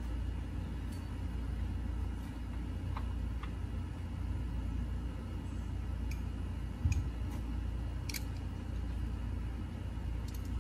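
A steady low background rumble, with a few faint, irregular clicks and taps of a hand tool working a screw loose on the engine's air-intake tube, and one brief low thump about seven seconds in.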